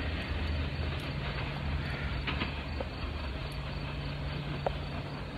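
A long freight train receding down the line: a steady low rumble of wheels on rail with a low drone, slowly fading, with a few brief faint squeaks.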